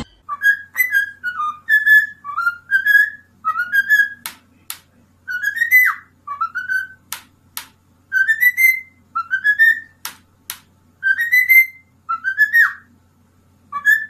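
Cockatiel whistling: short phrases of clear notes, each sliding up or down, repeated again and again. Sharp clicks come in pairs three times between the phrases.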